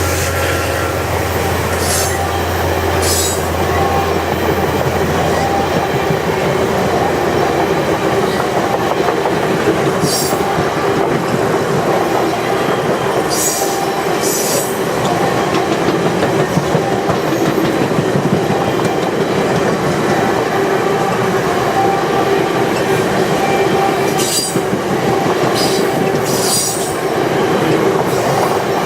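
Passenger cars of VIA Rail's The Canadian rolling past close by: a steady rumble and clatter of steel wheels on the rails, with short sharp high-pitched wheel squeals now and then. A low hum fades out about six seconds in.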